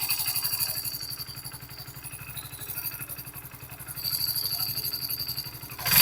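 Hero Splendor BS6 single-cylinder air-cooled motorcycle engine running steadily with an even pulse, a little louder in the last two seconds. Its tappets have just been set to the correct valve clearance, and the ticking clatter is gone: the engine runs smooth.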